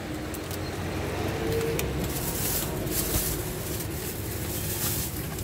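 Steady low rumble of street traffic and motorbike engines, with a few faint ticks and rustles of plastic bags being handled.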